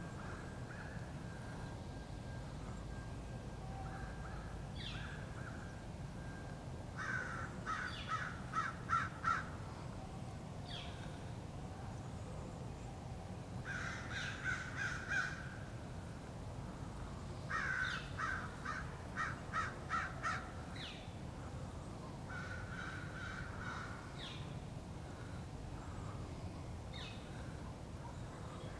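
Crows cawing in four bouts of rapid, harsh repeated calls a few seconds apart, mobbing a bald eagle at its nest tree. A few single higher calls come in between, over a steady low background rumble.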